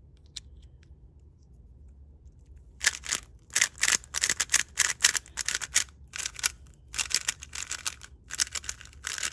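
Angstrom Studio MoYu WeiLong WR M 3x3 speed cube being turned fast in the hands: rapid plastic clicking and scraping of the layers, starting about three seconds in after a few faint clicks.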